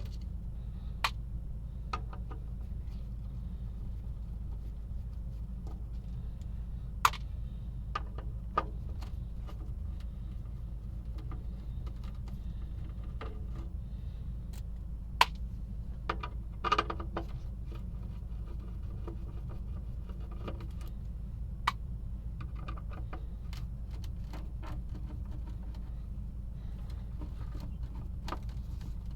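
Small tools and metal parts being handled: scattered sharp clicks and clinks, with a short cluster about two-thirds of the way through, over a steady low hum.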